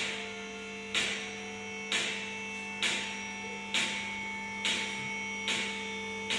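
JSZM hydraulic scissor car lift raising a car: the pump motor hums steadily, and a sharp click comes about once a second as the platform climbs, typical of the lift's safety latches passing their stops.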